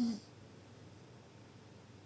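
The end of a deep snore, a steady pitched drone with a breathy hiss, stopping just after the start, then a quiet pause between snores with only faint background noise.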